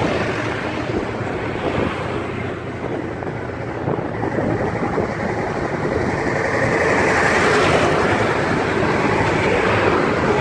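Engine and road noise heard from on board a moving vehicle, a steady dense rumble that grows louder about two-thirds of the way through.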